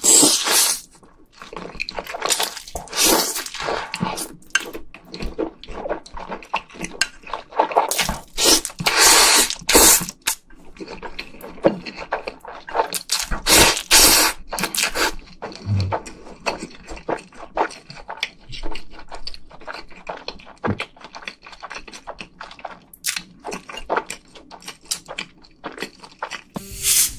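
Close-miked mukbang eating of spicy food: wet slurping and chewing in many short, irregular bursts.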